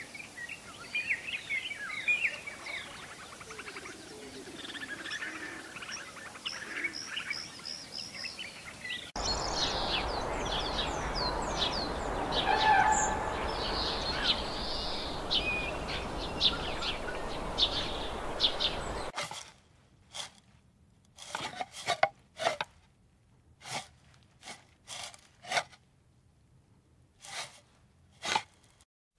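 Small birds chirping with many short high calls over outdoor background noise, which grows louder about a third of the way in. From about two thirds of the way in, this gives way to a run of separate sharp clicks or taps, irregularly spaced, over quiet.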